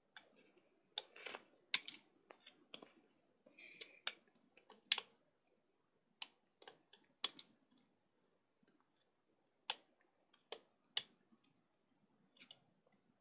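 Irregular sharp clicks and snaps from a plastic hook working rubber bands up and over the pegs of a clear plastic Bandaloom, coming in uneven clusters with a short lull in the middle.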